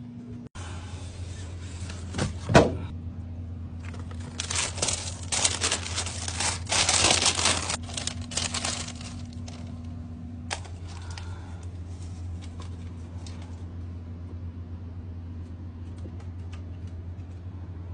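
White tissue wrapping paper in a shoebox crinkling and rustling for about five seconds, preceded by one sharp knock. A steady low hum runs underneath, and after the rustling stops only faint ticks remain.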